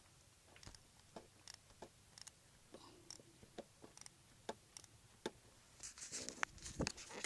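Faint, irregular clicks and small knocks of hand tools on metal while an old spark plug is worked loose, with a short stretch of hiss and rustling near the end.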